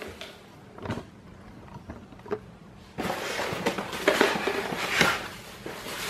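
Packaging being handled: a couple of light knocks against cardboard, then plastic wrapping crinkling and rustling from about halfway as the fan's plastic-wrapped motor is lifted out of its box.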